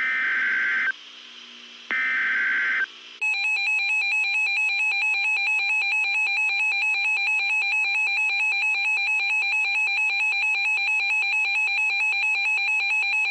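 Emergency Alert System signal: two harsh digital data bursts of about a second each (the SAME header), then a continuous buzzing attention tone with a fast flutter that runs for about ten seconds.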